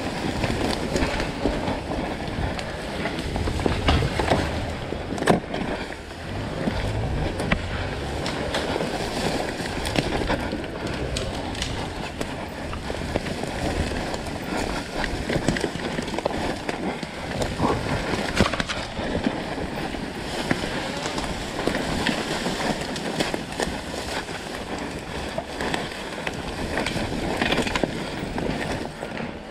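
Rough, uneven scraping and rustling with many short knocks, and wind buffeting the microphone. No engine is running.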